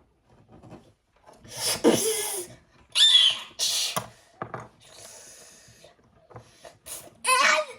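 A child's voice making mouth sound effects for a fight: several loud hissing, blasting bursts, a softer hiss in the middle, and a bending vocal cry near the end.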